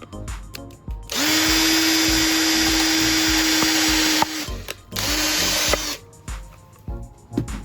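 Electric drill running at a steady speed for about three seconds, stopping, then running again briefly for under a second. Background music with a steady beat plays underneath.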